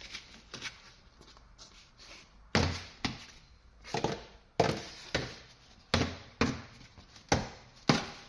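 A series of short dull knocks, about two a second, starting a few seconds in, each fading quickly.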